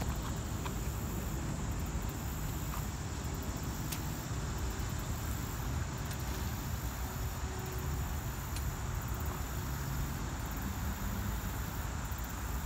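Outdoor ambience dominated by wind rumbling on the microphone, over a steady hum of distant traffic and a high insect chirring.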